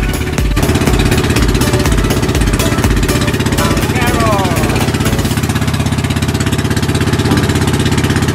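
Outrigger boat's inboard engine running steadily under way, a loud, fast, even pulsing.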